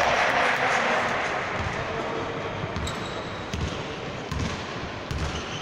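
Basketball bouncing on the hall floor, with several dull thuds in the second half, over the general noise of a game in a large hall.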